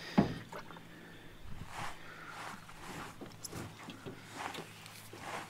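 A sharp knock on the aluminium jon boat just after the start, then scattered lighter knocks and rustles over a faint steady low hum.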